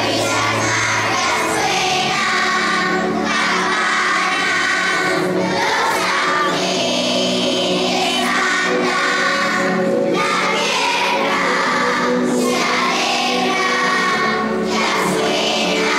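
A choir of primary-school children singing a Christmas song over an instrumental accompaniment.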